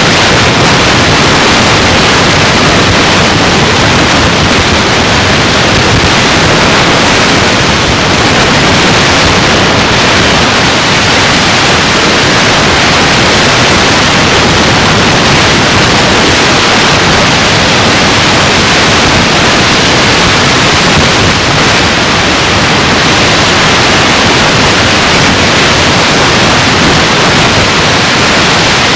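Loud, steady static hiss with no voice or other sound in it, even and unbroken throughout.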